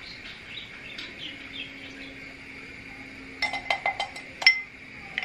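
A small glass bowl clinking, tapped six or seven times in quick succession about three and a half seconds in as it is emptied over a pot of soup.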